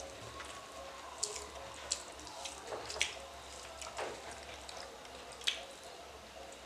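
Eating by hand: fingers mixing and squeezing rice with curry on steel plates, giving scattered soft, wet clicks and squishes.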